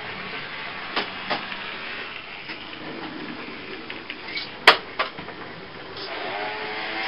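A steady hiss of background noise broken by a few sharp clicks. There are two clicks about a second in, and a louder one with another just after it a little before five seconds in. Near the end there are faint pitched sounds that may be voices.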